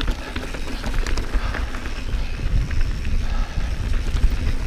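A Santa Cruz Bronson mountain bike being ridden on a dirt trail: tyres rolling over dirt and rock, with scattered rattles and small knocks from the bike and wind rushing over the microphone.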